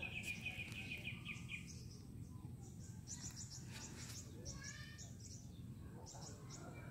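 Small birds singing: a quick trill of rapidly repeated high notes in the first couple of seconds, then scattered thin chirps, over a steady low rumble.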